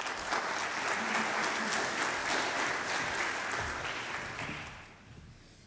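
Audience applauding, with dense clapping that dies down after about four seconds.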